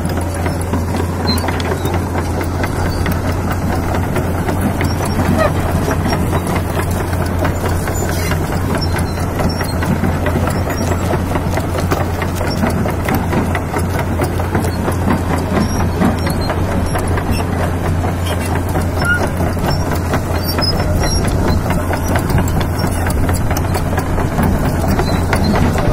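Kobelco SK200 Super excavator's diesel engine running steadily with an even low hum as the machine travels on its crawler tracks. The owner calls the engine note smooth, from an engine overhauled after a broken piston ring.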